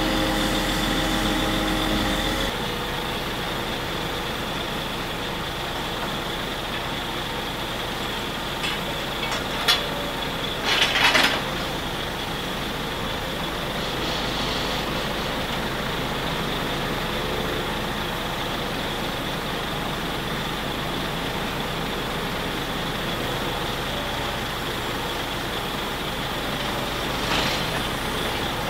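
DAF truck's diesel engine running steadily while it powers the hydraulic grab crane loading scrap metal, with a high steady whine over the engine. A few short clanks of scrap metal come around ten seconds in and once near the end.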